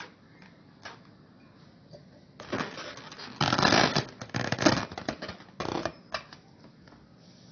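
Rustling and crackling with quick clicks as lit paper burns in a glass jar and a rubber balloon is pressed down onto the jar's mouth. It starts about two and a half seconds in, is loudest in the middle and stops about a second before the end.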